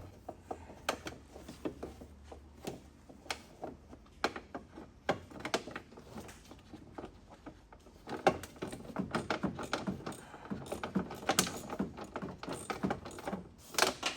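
Hand tools working on screws in a car's dashboard: scattered light clicks and small metal clatter, much busier from about eight seconds in.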